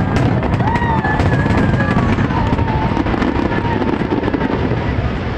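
Aerial fireworks bursting in a dense barrage: a continuous rumble of overlapping bangs with fast crackling from glittering shells.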